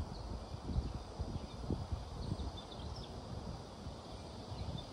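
Gusty wind rumbling on the microphone, rising and falling, as a hurricane's winds begin to pick up, with a few faint high chirps.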